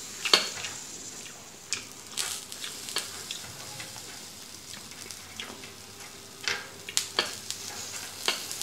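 Close-miked wet chewing with lip smacks, mixed with light clicks of wooden chopsticks against a metal dipping-sauce bowl as dumplings are dipped and turned. The sound is a run of short sharp clicks and smacks over a faint steady hiss.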